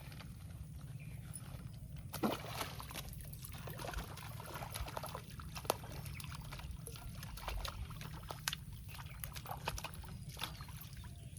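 Water sloshing and splashing in short, irregular bursts with scattered clicks, over a steady low rumble.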